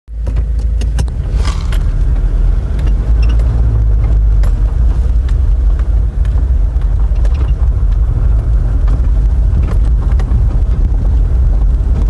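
In-cab noise of a vehicle driving on a gravel road: a steady low rumble of engine and tyres, with scattered short clicks and rattles.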